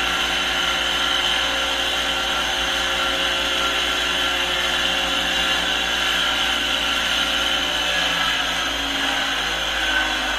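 Electric motor of an electrospinning disc collector spinning the steel shaft and disc, a steady whir with a high whine; its lower tones shift slightly near the end as the speed control is adjusted.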